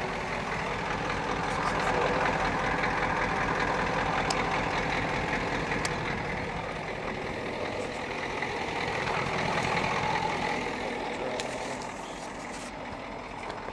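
Ford F-350 tow truck's diesel engine idling steadily.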